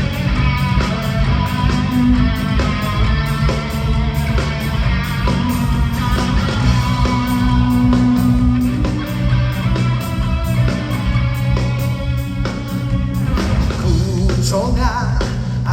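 Live rock band playing a loud instrumental passage: electric guitar, bass and drums on a steady beat.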